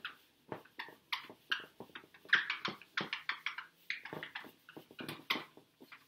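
Marker writing being wiped off a whiteboard by hand: a quick run of short rubbing, scrubbing strokes, about three a second.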